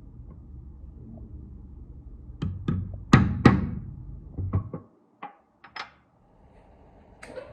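A run of sharp knocks and taps, hard objects striking, about ten in all; the two loudest come close together about three seconds in.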